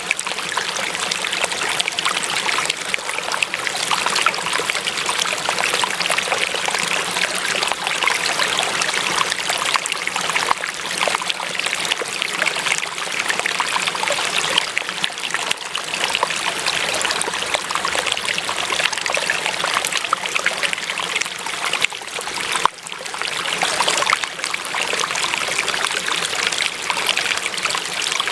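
Running water trickling and splashing steadily, with a momentary drop in level about three quarters of the way through.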